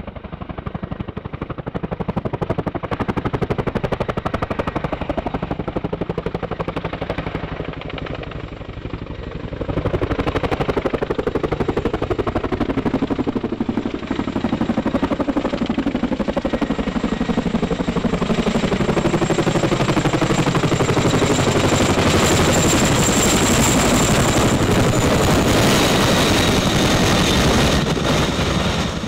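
Boeing CH-47 Chinook tandem-rotor helicopter approaching and passing low overhead, its rotors giving a rapid chopping blade slap. The sound grows louder about a third of the way in, and a high whine comes through in the second half.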